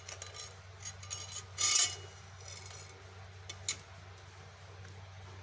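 A few clinks and a scrape of metal kitchenware, loudest about two seconds in, over a steady low hum.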